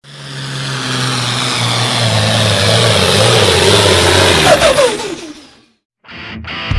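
Farm stock pulling tractor's engine running hard under load, swelling up and holding loud; near the end its pitch drops and the sound fades out.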